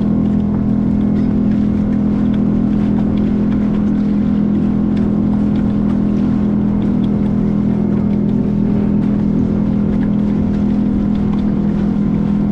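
Boat engine running steadily at a constant speed: an even, low hum that holds one pitch throughout.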